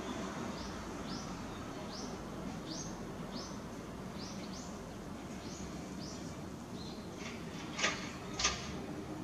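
A small bird calling over and over: short, high notes about two a second. Two louder, sharp clicks come near the end.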